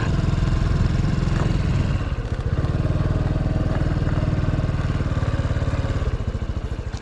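Honda Super Cub 110's single-cylinder four-stroke engine running at low revs with an even, fast putter, dipping slightly about two seconds in.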